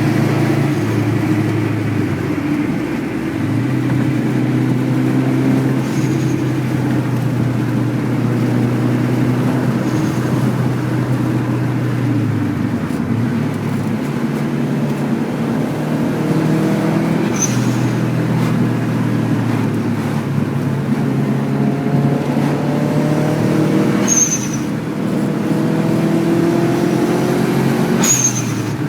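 Subaru WRX's turbocharged flat-four engine pulling hard through the gears, its note climbing and then dropping at each gear change. Short hisses come on throttle lift, the last two about three-quarters of the way in and near the end, typical of an HKS blow-off valve venting.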